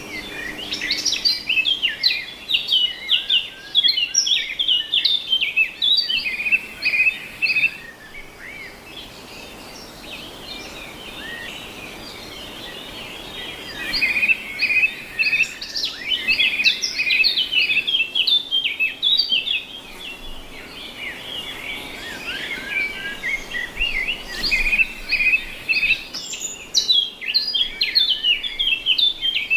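Birds chirping and singing: a busy run of short, rapid chirps that thins out for a quieter stretch about a third of the way in, then picks up again.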